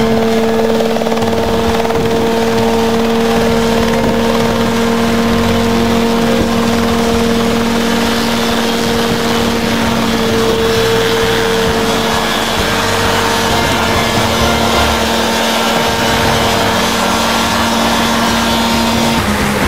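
Small single-seat helicopter hovering just off the ground: a loud, steady engine and rotor drone that holds one pitch throughout.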